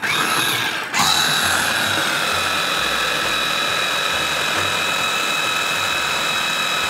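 A Bosch electric mini chopper blends a liquid mix, its motor running with a steady high whine. The motor cuts out briefly about a second in, spins back up, and then runs steadily.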